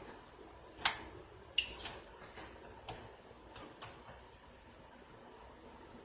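Sharp plastic clicks and light knocks of cable connectors being unclipped and pulled from a Dell PowerEdge R710 server motherboard: about six separate clicks in the first four seconds, the two loudest about one and one and a half seconds in.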